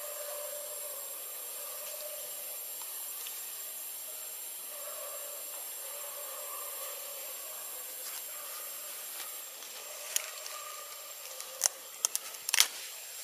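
Steady high hiss of outdoor ambience with a faint wavering drone underneath; from about ten seconds in come a handful of sharp clicks or taps, the loudest sounds here.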